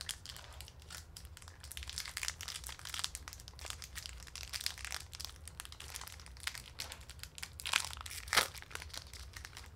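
Crinkling and crackling of a small chocolate bar's foil wrapper being torn and peeled open by hand, irregular throughout with the loudest crackles about eight seconds in.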